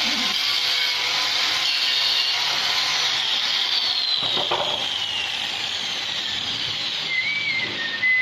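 A woodworking power tool running on wood, its whine falling in pitch over a few seconds as it slows; a few short warbling whistles near the end.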